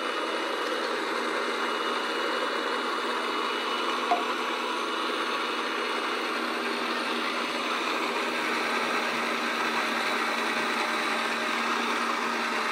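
Yonanas frozen treat maker's electric motor running steadily as frozen berries are pushed down its chute with the plunger and shredded by the blade, with one brief click about four seconds in.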